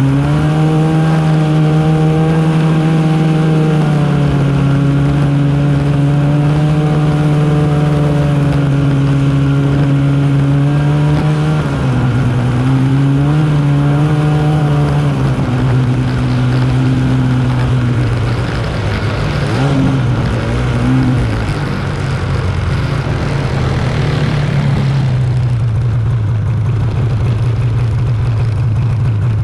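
Arctic Cat snowmobile engine running under way at a steady cruising pitch, dropping about twelve seconds in, briefly picking up and easing off through the middle, then holding a lower, steady pitch for the rest.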